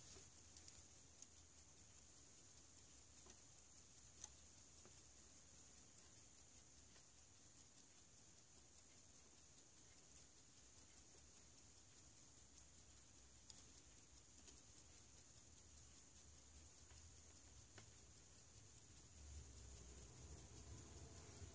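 Near silence with the faint, even ticking of a running timepiece, and a few light clicks of small metal parts.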